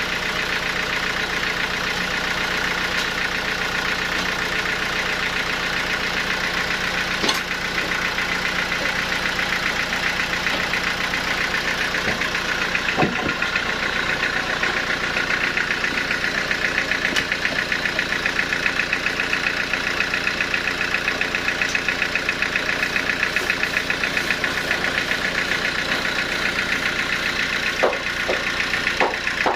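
Sawmill machinery running steadily with a fast, even mechanical pulse, with a few short sharp knocks about seven and thirteen seconds in and near the end.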